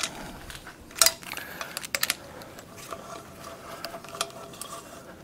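Hand ratchet clicking and steel tools clinking as exhaust manifold bolts are run down and torqued. There are a few sharp clicks in the first two seconds, then lighter ticking.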